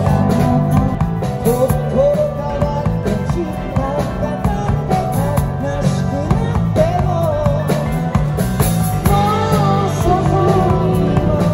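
A rock band playing live: drum kit, guitars and keyboards, with a singing voice over the top.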